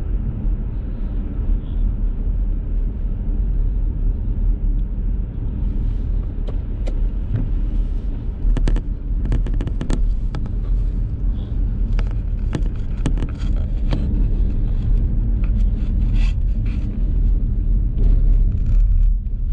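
Cabin noise inside a moving car: a steady low rumble of engine and road noise, with scattered light clicks through the middle and later part.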